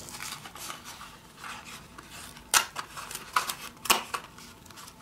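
Small cardboard product box being opened by hand: rustling and scraping of the cardboard, with a few sharp snaps, the loudest about two and a half and four seconds in.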